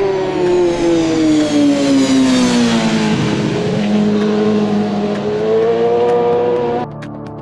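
Road-racing motorcycle engine at high revs, its pitch falling steadily for about three seconds as it slows, holding for a moment, then rising again as it accelerates. It cuts off suddenly near the end, where music comes in.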